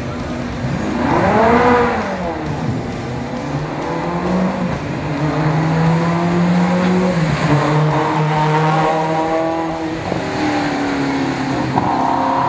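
Ferrari 360 Modena race car's V8 engine at full throttle on a hill climb. The revs swing up and back down about a second in, then the engine pulls hard, its pitch dropping in steps at several gear changes.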